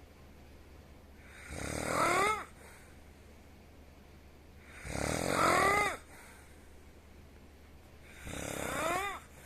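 A person snoring with an unusual squeak: three snores about three seconds apart, each a noisy breath that ends in a short whistling tone bending up and back down.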